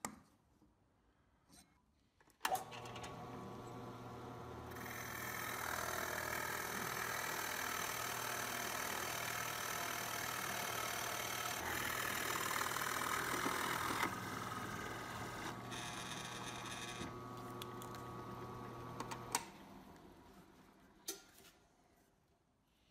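Drill press switched on a couple of seconds in, its motor running steadily while a large bit bores a hole into a block of oak, with the cutting noise loudest through the middle. Near the end the motor is switched off with a click and spins down.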